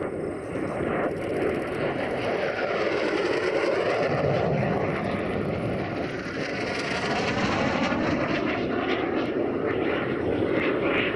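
MiG-17 jet fighter flying past at high power with its afterburner lit: a loud, steady jet roar. The pitch slides down and back up as it passes and turns, with some crackle near the end.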